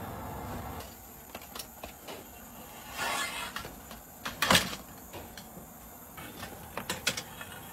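A long-handled metal bread scoop scraping and knocking against the clay wall and rim of a tandoor as baked flatbreads are pried off. There is a scrape about three seconds in, a sharp knock a moment later, and a few light clicks near the end.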